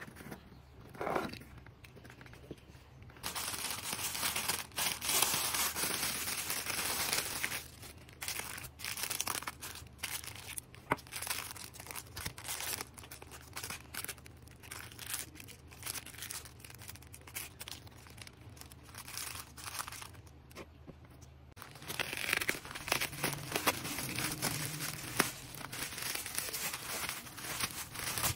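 Clear plastic packaging and bubble wrap crinkling and tearing as small items are unwrapped by hand. The crinkling comes in two busier spells, one a few seconds in and one near the end, with quieter handling and light taps between.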